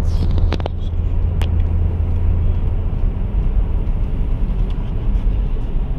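Car driving, heard from inside the cabin: a steady low rumble of engine and road noise, with a few short clicks in the first second and a half.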